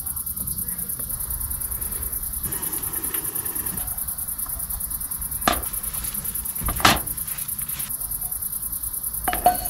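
Crickets chirring in a fast, steady, high-pitched pulse, with three short sharp cracks or knocks in the second half.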